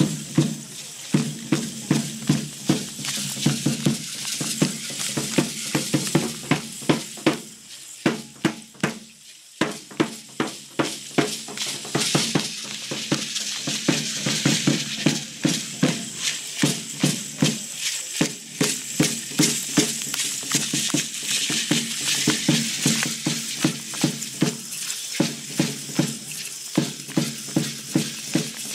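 Large drum beating a steady dance rhythm, about two beats a second, with the dancers' hand rattles shaking in a continuous rattle on top. The beats drop away for about two seconds roughly eight seconds in, then resume.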